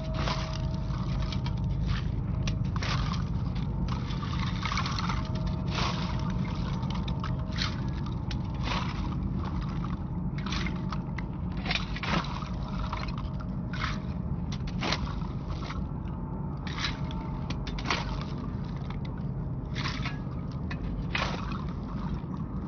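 Irregular scraping strokes of a shovel and broom working debris off the ground, over a steady low rumble.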